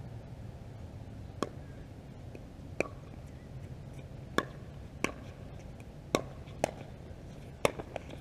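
Pickleball rally: seven sharp pocks of paddles striking the hollow plastic ball, unevenly spaced about a second apart.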